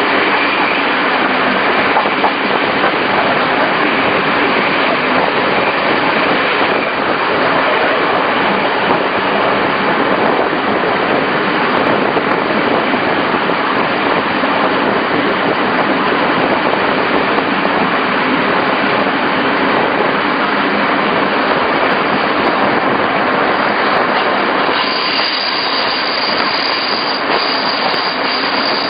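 Regional passenger train running along the track, heard from on board: a steady rush of wheel and rail noise. A high, thin steady tone joins in near the end.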